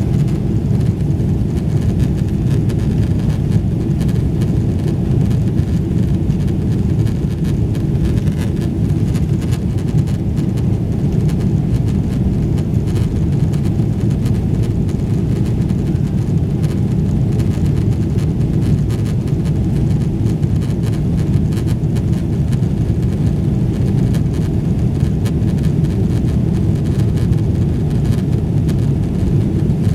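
Steady, loud low engine and airflow noise inside the cabin of a Boeing 777-300ER, its GE90-115B turbofans at takeoff or climb power.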